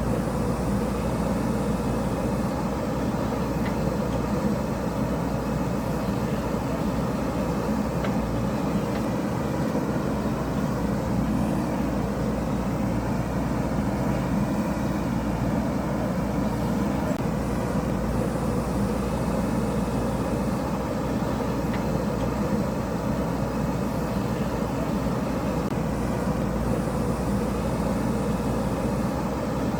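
JCB backhoe loader's diesel engine running steadily under digging work, a constant low drone with no marked revs up or down.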